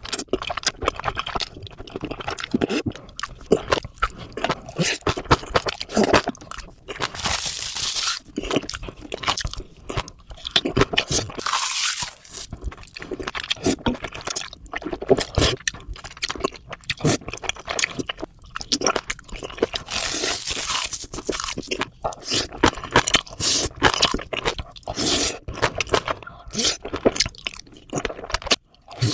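Close-miked eating sounds: food being crunched and chewed in quick, irregular bites, with a few longer hissing sounds of about a second each.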